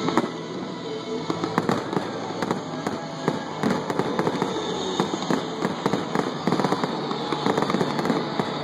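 Aerial fireworks display: shells bursting in a rapid string of bangs and crackles, thickest near the end, with music in the background.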